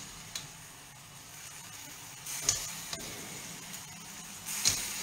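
Food sizzling in a frying pan as boiled spelt gnocchetti are added from the pot. A metal utensil clinks against the cookware three times, and the sizzle swells after each of the last two clinks.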